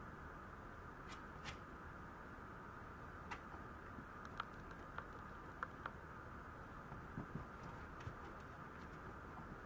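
A Maltese puppy moving about a playpen floor: faint, scattered clicks and taps, some a second or more apart, over a steady hum.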